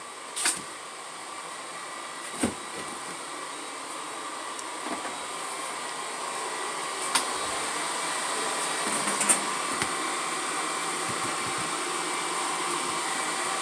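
A steady machine whir that grows slowly louder, with a few sharp clicks and knocks.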